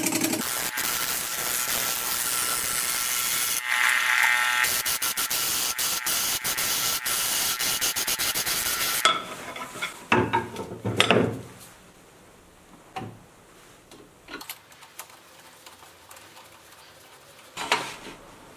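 Turning tool cutting a spinning wooden blank on a Harvey wood lathe: a loud, steady hiss of shavings coming off that stops abruptly about nine seconds in. Then a few sudden knocks and scrapes follow, about a second later and again near the end, as the tool rest and the blank are handled.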